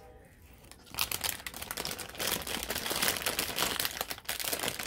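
Clear plastic wrapping crinkling as a bundle of solar string lights inside it is gathered up and moved, starting about a second in and going on steadily.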